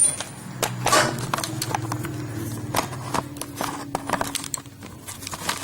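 Irregular sharp clicks and knocks from equipment being handled, over a steady low hum that fades out near the end.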